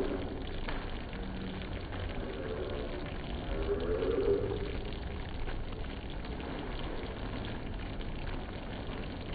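Thick milk mixture boiling hard in a pan, a steady bubbling as it is cooked down and thickened.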